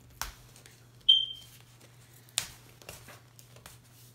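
A single short, high electronic beep about a second in. Around it come a few short crinkles and taps from hands working at a plastic-wrapped roll of canvas.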